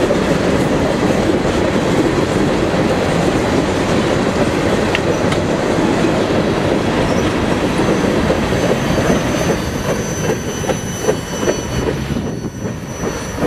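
Freight train of tank cars rolling past, a steady heavy rumble of steel wheels on rail with a thin high wheel squeal. In the later seconds it breaks into separate clicks of wheels over rail joints as the train passes and the sound fades.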